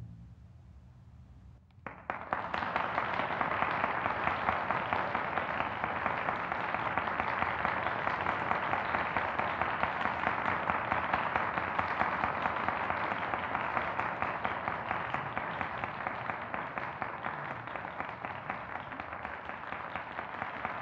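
Audience applauding. After a brief hush it starts about two seconds in and keeps up as steady, dense clapping.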